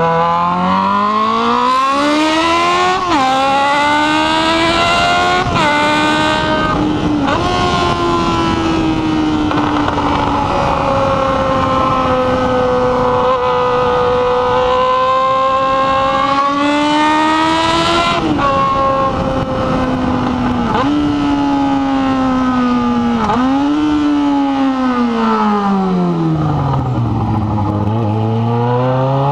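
Yamaha XJ6 N motorcycle's inline-four engine under way. It pulls up through several quick upshifts in the first seven seconds, holds a steady cruise, shifts again a few times later on, then the revs drop low near the end before climbing again.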